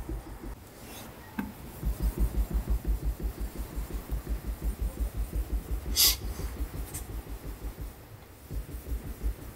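Kitchen knife blade (a kurouchi gyuto) stroked back and forth on a wet NSK Hakuto2 synthetic whetstone, a rhythmic rubbing of about four strokes a second with a short pause near the end. A single sharp knock about six seconds in.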